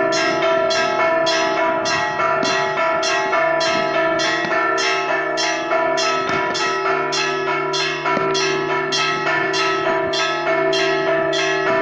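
Church bells ringing a festive repique, the peal that rings in the New Year: rapid, steady strikes about three a second, ringing over one another.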